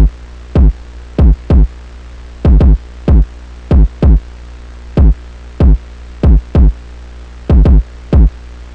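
Electronic drum-machine beat for a Memphis phonk track: loud, booming kick hits whose pitch falls as each one decays, about sixteen in a syncopated, uneven pattern with some quick doubled hits, over a steady low bass drone.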